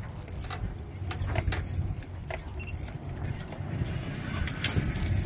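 Fishing reel being cranked against a hooked fish, with irregular light metallic clicks, over a steady low rumble.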